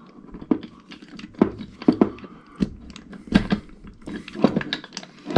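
Irregular clicks, knocks and rattles from a mini-lathe apron fitted with 3D-printed reduction gears as it is handled and its handwheel is turned. The gears are loosely assembled.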